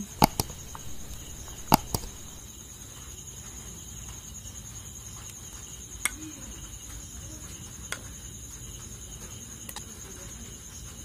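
Metal ladle clinking now and then against the steel pan and the glass serving bowl while rasmalai is spooned out: a few sharp clicks, the loudest in the first two seconds. Behind them runs a steady high-pitched trill.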